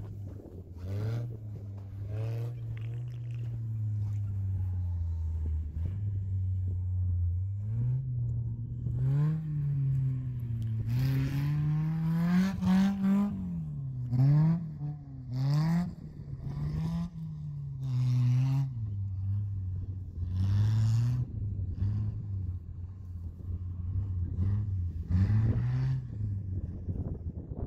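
Suzuki Sidekick's small four-cylinder engine revving up and down repeatedly under changing throttle as it is driven off-road. Bursts of scraping noise come in now and then.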